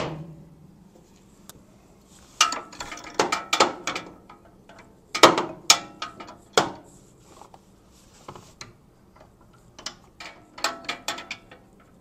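Ratchet wrench clicking in several short bursts of quick clicks with pauses between them, as it turns a 17 mm crow's foot to back out a motorcycle's rear brake light switch that has just been cracked loose.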